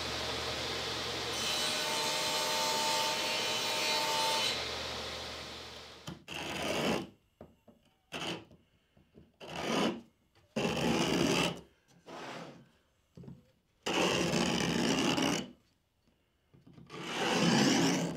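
Table saw running, then spinning down and falling quiet about five seconds in. After that a chisel is pushed by hand along a shallow groove in a plywood strip, paring out the waste in about eight scraping strokes of about a second each, with short pauses between them.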